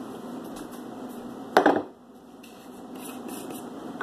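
A loud knock about a second and a half in and a smaller one at the very end, from kitchen things being handled and set down, over a steady low background hum.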